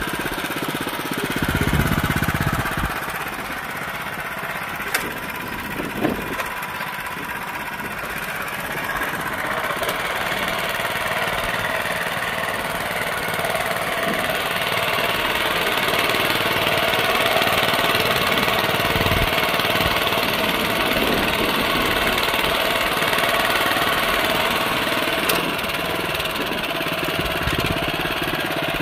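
Honda FJ500 DLX tiller's single-cylinder four-stroke engine running steadily while it drags spring tines through the soil, with a few sharp clicks.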